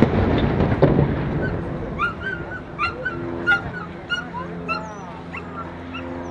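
Rolling boom of a ship's salute cannon dying away, with a second, smaller report about a second in. Then a dog whimpers and yips in a run of short, high cries.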